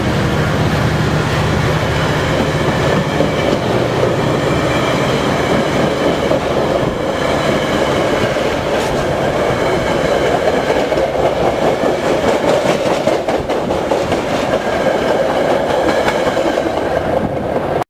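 Metra commuter train rolling past, its wheels clattering on the rails with some high ringing tones. A low diesel engine drone fades over the first few seconds.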